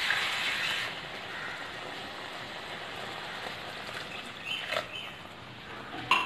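Water poured into a pan of hot onion-tomato masala hisses loudly for about a second, then the masala simmers with a steady sizzle. A few sharp knocks of the spatula against the pan come near the end.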